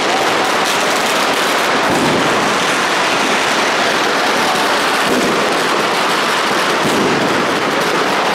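Dense, continuous crackling of many firecrackers and fireworks going off all around, the individual bangs merging into a steady, loud din.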